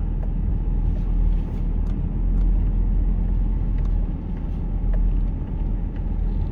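A vehicle driving: a steady low rumble of engine and tyres, with a few faint clicks.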